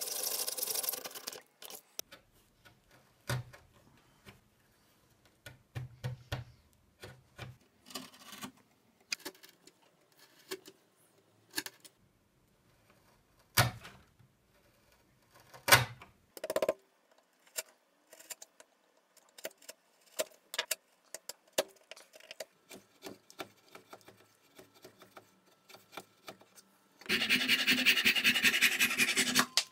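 An electric drill runs briefly with its twist bit boring into birch, then stops. A long run of scattered sharp knocks and clicks follows, a chisel chopping and paring out a small square hole in birch, with two louder knocks near the middle. Near the end a handsaw cuts steadily through a small piece of wood for about two and a half seconds.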